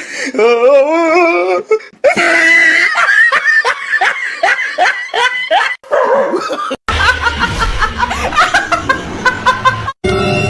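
A person laughing hard in quick repeated bursts. About seven seconds in, a sudden cut brings in a busier, music-like backing.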